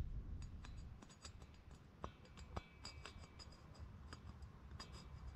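Faint, irregular small clicks and ticks of parts being handled, over a low steady hum.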